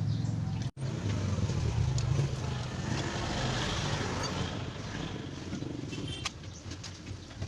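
A motor vehicle engine running with a steady low hum, growing louder around two seconds in and easing toward the end. The sound drops out completely for an instant just under a second in.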